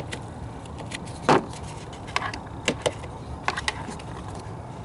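Plastic wiring-harness clips in a BMW E46 engine bay being pried and unclipped: one sharp snap about a second in, then several lighter clicks and taps.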